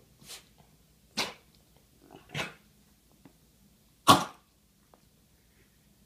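Small dog giving four short, harsh hacking coughs, the last and loudest about four seconds in, as it lowers its head with its mouth open; the fit is set off by overexcitement.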